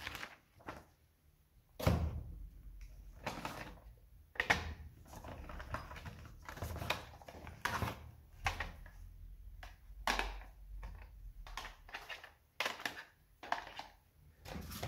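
Unpacking handling noises: irregular knocks, rustles and clatter as a paper manual is leafed and plastic drill-bit boxes are lifted out of a fabric tool case, with a dull thump about two seconds in.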